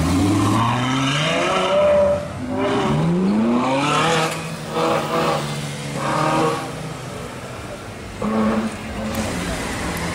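Ferrari F12berlinetta's V12 accelerating hard away, its pitch climbing through a gear, with an upshift about two seconds in and a second climb just after. Shorter bursts of engine revving and crowd voices follow.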